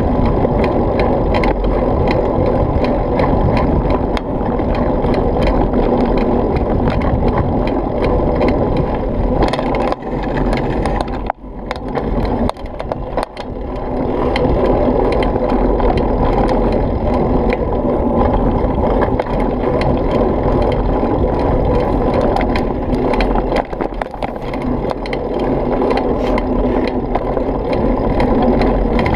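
Mountain bike rolling fast over a rough dirt trail: a steady rumble of tyres and wind on the mounted camera, with frequent clicks and rattles from bumps. It eases off for a few seconds about ten seconds in, then picks up again.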